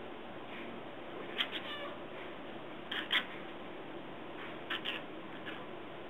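Domestic cat chirping and chattering at birds through a window: about three short clusters of quick high chirps, mostly in pairs, the first ending in a rapid stuttering chatter.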